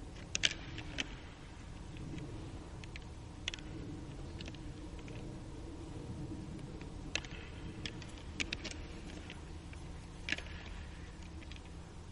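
Fallow deer bucks fighting, their antlers clacking together in irregular sharp knocks, some single and some in quick clusters, over a steady low background noise.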